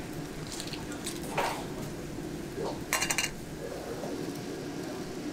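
Clams clattering against a steel bowl as they are tipped into a clay pot of simmering stew, with a quick run of metallic clinks about three seconds in, over a steady background hiss.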